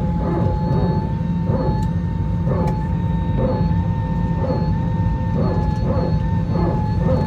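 Aircraft cabin noise inside an Airbus A321neo: the Pratt & Whitney PW1133G engines and airflow make a steady low rumble, with a steady whine running over it.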